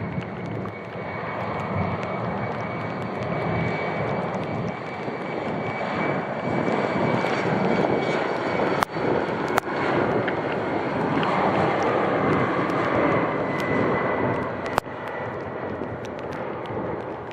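Jet airliner passing close by: a steady high turbofan whine over a broad engine roar that swells to its loudest partway through and then eases off. A few sharp clicks sound near the middle and near the end.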